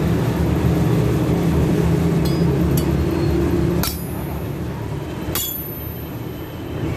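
Two sharp metallic strikes about a second and a half apart, each with a brief high ring: a meat cleaver chopping into an iron rod laid on an anvil block. A steady low rumble runs underneath.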